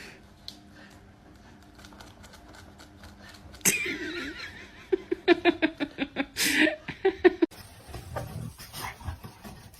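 A dog vocalising in a quick run of short, pitched cries that start suddenly about four seconds in, after a quiet opening.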